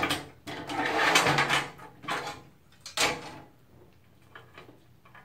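Handling noise from a PC case's front-panel cables and connectors: several short rustling scrapes and clatters, then a few faint clicks after about three seconds.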